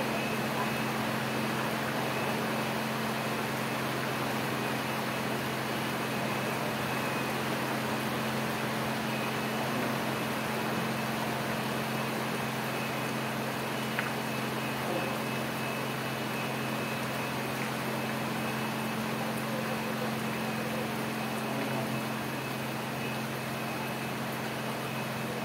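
Heavy rain falling steadily onto a pond, over a steady low mechanical hum; a single faint click about halfway through.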